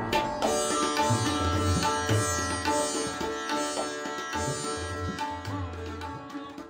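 Instrumental theme music: a plucked string melody over low hand-drum strokes, in a South Asian style, gradually fading out.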